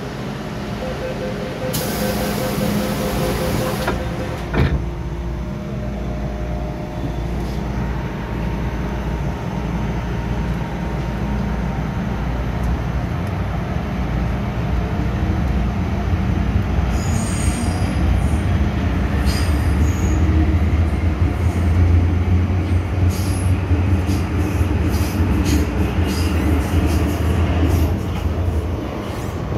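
MTR M-Train electric multiple unit running on the Kwun Tong Line: steady wheel and rail rumble with a brief hiss a couple of seconds in. The low rumble grows louder in the second half, with high-pitched wheel squeal and clicks over it.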